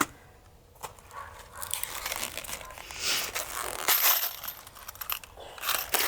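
Crinkling and rustling of something being handled, with scattered light clicks, busiest about halfway through and near the end.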